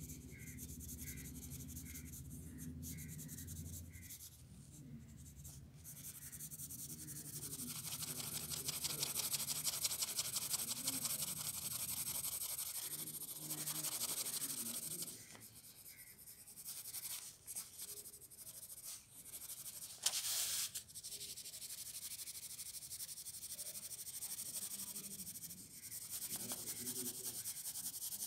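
Pencil scratching on paper in rapid back-and-forth hatching strokes, loudest in a long stretch of shading a few seconds in. It turns quieter and broken for a while, with one sharp, loud stroke about twenty seconds in, then goes on steadily.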